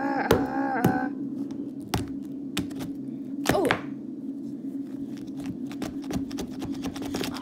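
Plastic toy animal figures knocked against a table top and against each other in play: a scattered run of taps and thunks. A voice makes repeated short sounds in the first second and a brief falling sound about three and a half seconds in.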